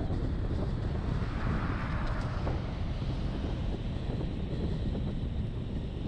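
Road noise from a vehicle driving on wet asphalt: a steady low rumble of engine and tyres, with a swell of hiss in the middle.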